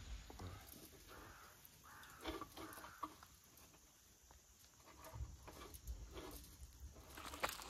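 Faint outdoor quiet with a few harsh bird calls about two to three seconds in, and a couple of light clicks near the end.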